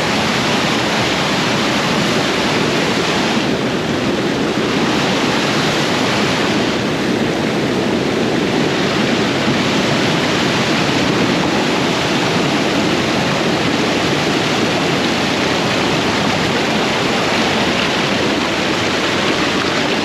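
Rushing water, a steady loud noise of a waterfall or fast stream close by.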